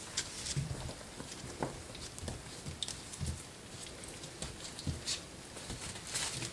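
Young puppies wrestling on newspaper: irregular soft thuds and paw scrabbling, with short crackles of paper rustling now and then.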